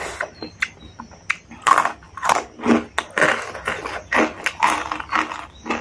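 Close-miked chewing of crunchy food: crisp crunches about twice a second with small wet mouth clicks between them.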